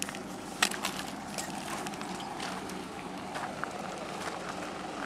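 Footsteps on loose stony ground, irregular steps and small clicks of stones over a steady background noise.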